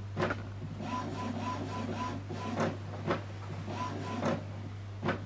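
Epson XP-3200 inkjet printer's mechanism running as it checks its newly installed ink cartridges and starts initializing: motor whirring with a short whine repeated in dashes, and several sharp mechanical clacks.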